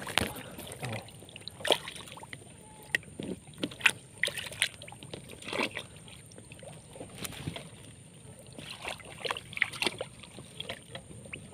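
Irregular splashing and sloshing of swamp water with scattered sharp knocks and clicks, as a set fishing line is worked up from deep under tree roots.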